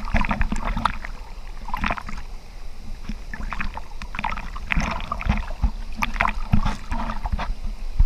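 Creek water sloshing and splashing against a waterproof camera housing held at the surface, in irregular slaps, over the steady rush of a small waterfall.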